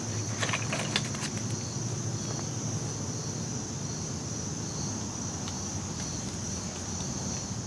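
Steady evening insect chorus, a continuous high-pitched drone, with a few light clicks from gear being handled in the first second or so.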